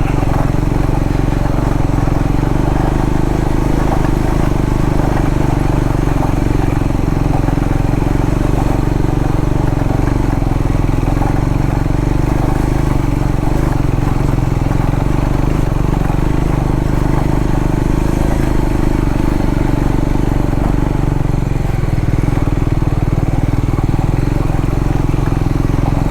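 Triumph Scrambler 400X's single-cylinder engine running steadily, its pitch unchanging.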